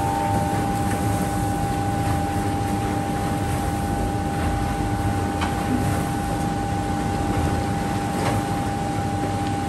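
The 0.5 m3 pan mixer of a mobile concrete batching plant running and discharging wet concrete. It makes a steady mechanical rumble with a constant whine over it and a few faint ticks.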